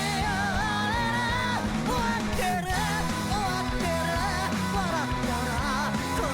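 Anime opening theme song playing: a rock-pop track with a vocalist singing a wavering melody over a full band.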